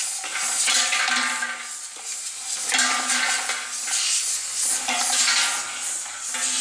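Rotary cap dispenser running, its spinning disc tumbling green plastic bottle caps against each other and the steel bowl in a continuous rattling clatter that swells and eases. A steady low hum from the machine runs underneath.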